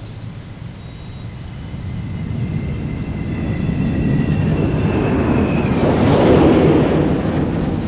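Shuttlecraft flyby sound effect: engine noise that swells as the craft comes in close overhead, loudest about six seconds in and then easing off, with a thin high whine that falls slightly in pitch before fading out.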